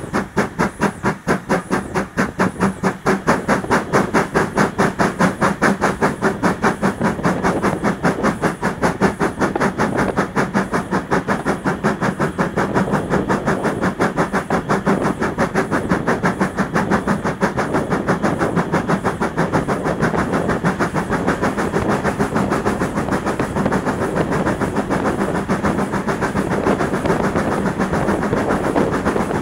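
Steam locomotive running under steam, a fast, even beat of exhaust chuffs over the clatter of the wheels on the rails.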